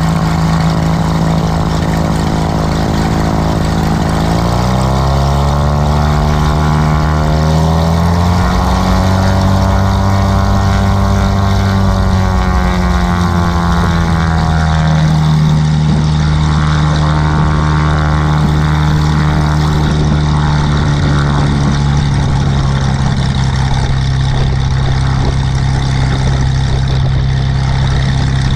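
Cessna's piston engine and propeller running steadily, then speeding up about four seconds in as the throttle is opened, the pitch rising for several seconds before settling at a steady higher note.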